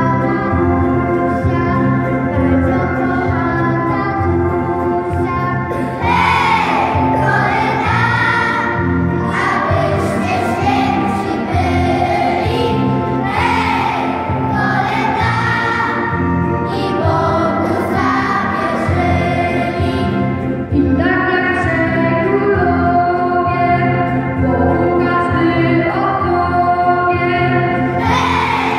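Choir singing with musical accompaniment; the voices grow stronger about six seconds in.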